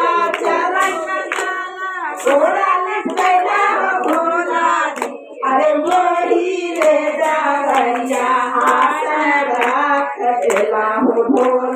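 Women singing a Shiv bhajan, led by a woman singing into a microphone, with hand clapping keeping a steady beat.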